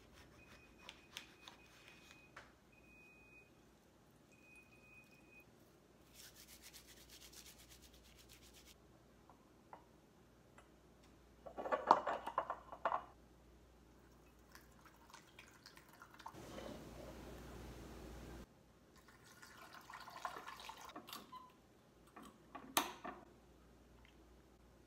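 Kitchen prep sounds: a knife clicking through a blood orange on a wooden cutting board, then liquid poured through a funnel into glass swing-top bottles, the loudest pour about twelve seconds in, and a sharp glass clink near the end.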